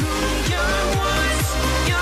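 Electronic dance music with a steady beat, a little over two beats a second.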